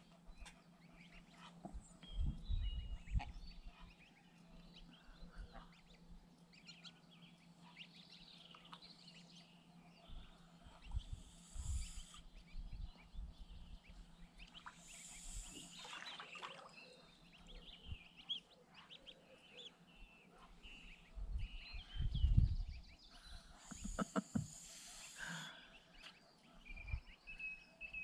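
Geese and goslings calling now and then, with scattered soft peeps and a few short hissing noises. Low rumbles of wind on the microphone come and go, strongest about two seconds in and again near twenty-two seconds.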